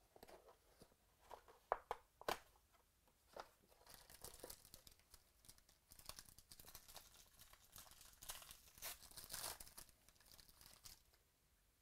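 Quiet handling of a cardboard trading-card box as it is torn open, with a few sharp snaps in the first couple of seconds. Then comes a stretch of crinkling as the foil-wrapped card pack inside is pulled out and handled.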